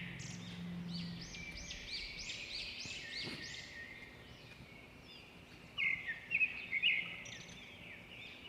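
Small birds chirping in the background: a quick run of repeated arching chirps, about three a second, then a few more chirps later.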